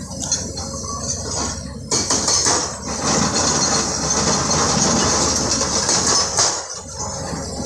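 Tata Hitachi excavator's hydraulic rock breaker hammering stone: a dense metallic clatter over the steady rumble of diesel excavator engines, louder from about two seconds in until near the end.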